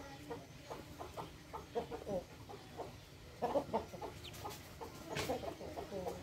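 A huddled brood of ducklings giving many short, soft calls, several a second, with louder clusters about three and a half and five seconds in.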